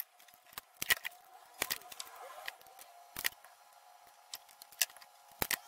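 Tools and an electrical cord being handled on a wooden workbench: several sharp clicks and knocks, roughly a second apart.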